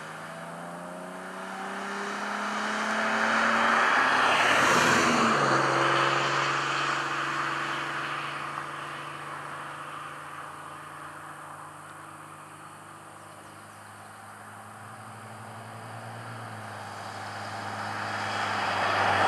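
A motor vehicle passes on the highway. Its sound builds to a peak about four to five seconds in, with the engine pitch dropping as it goes by, then fades. The traffic noise swells again near the end.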